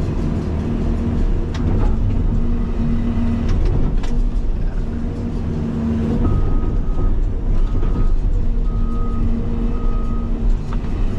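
Cat 336 excavator's diesel engine working under load with a steady hydraulic whine, and a few sharp knocks. From about six seconds in, an alarm beeps four times at a high pitch.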